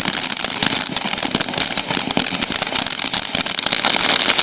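TNT Fireworks 'Grand Opening' consumer fireworks cake firing, a dense, steady run of rapid crackling pops.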